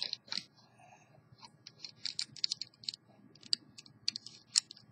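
Plastic LEGO bricks clicking together as pieces are handled and pressed onto a small build: a string of short, irregular clicks.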